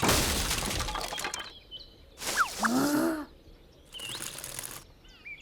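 Cartoon sound effects: a loud rustling whoosh that fades over a second or so, then a short squeaky wordless character vocalization and a few small whistling glides.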